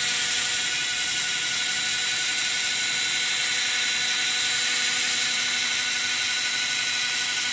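A machine running steadily: a continuous mechanical drone with a high whine, holding the same pitch and level throughout.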